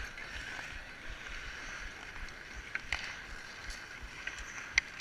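Ice hockey skate blades scraping and carving the ice in a steady hiss of strides, with a few sharp clicks, the loudest near the end.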